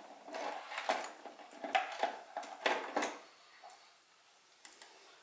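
Handling noise from multimeter test leads and probes being placed on a mower battery's terminals: rustling with a quick run of light clicks and knocks in the first three seconds, and a couple of faint clicks near the end.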